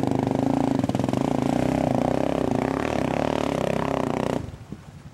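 Single-cylinder-style ATV engine running with rapid firing pulses as the quad ploughs through deep creek water, then cutting out suddenly a little over four seconds in: the engine dies in the water.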